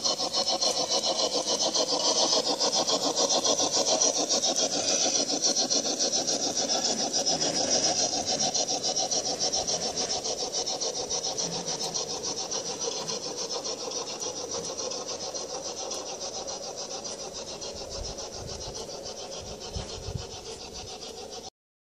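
Sound system of a G-scale Bachmann Spectrum 2-6-6-2 Mallet model steam locomotive giving rapid, steady chuffs as the train runs, slowly fading as it moves away, then cutting off suddenly near the end.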